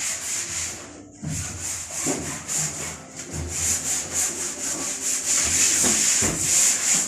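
Rhythmic rubbing strokes against a surface, about three a second, a hissing scrape like hand sanding.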